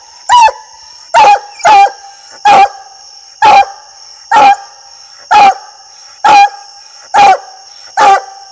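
Black and tan coonhound barking at a tree in a steady rhythm, about one loud bark a second: tree barking, the sign that the hound has its quarry treed.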